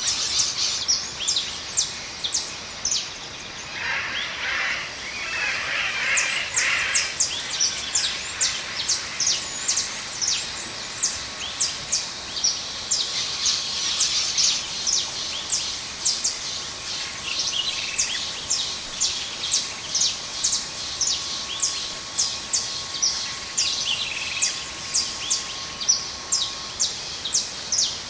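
Birds chirping: a steady run of short, high chirps, about two a second, with a rougher call from about four to seven seconds in and a thin steady tone through the middle.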